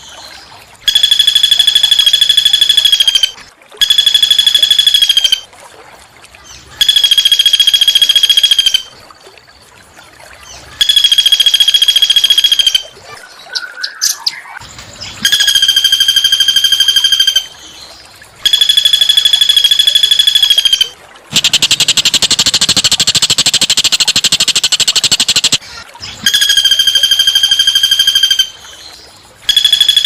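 Small songbird's call played over and over: a rapid trill held on one high pitch for about two seconds, repeated every three to four seconds. About two-thirds of the way through, a longer harsh, rasping call takes its place, and a few soft chirps fall in a gap near the middle.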